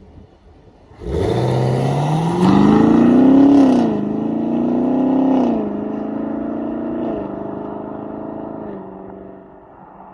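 2021 Camaro SS's 6.2-litre LT1 V8 through its dual-mode exhaust in Tour mode, accelerating hard: the engine note comes in about a second in and climbs, then drops with upshifts at about three and a half and five and a half seconds in. It settles lower, with further small drops, and fades near the end.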